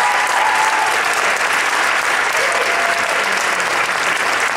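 Audience applauding loudly and steadily at the end of a choir performance.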